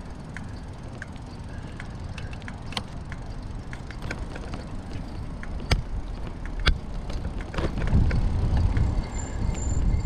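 Bicycle coasting along a path: a low rumble of wind on the microphone and tyre noise, with scattered sharp clicks and knocks from the bike. The rumble grows louder about eight seconds in as the bike picks up speed.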